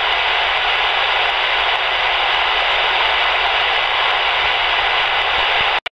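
Shortwave radio receiver in single-sideband mode on the 20-metre amateur band, giving a steady static hiss with no voice coming through. It drops out for a moment near the end.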